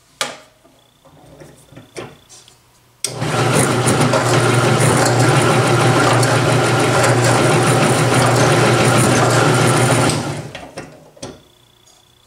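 Small bench drill press switched on and running steadily for about seven seconds, turning a Vortex Ball Roller that rolls a cast lead round ball between its toothed plates; the motor then cuts out and spins down. Before it starts there are a few clicks and knocks as the ball is loaded into the roller.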